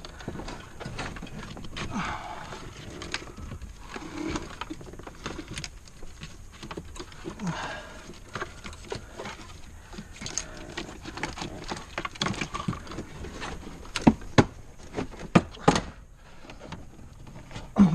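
Scattered clicks and knocks of hands and tools working on a car's plastic interior trim, with a few sharp, loud knocks about three-quarters of the way through.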